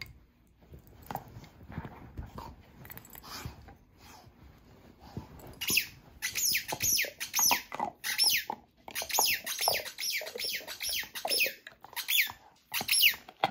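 Dog chewing a squeaky chew toy, with soft rustling and mouthing at first. About halfway through, the toy's squeaker starts squeaking in rapid runs of short, high squeaks that fall in pitch, several a second.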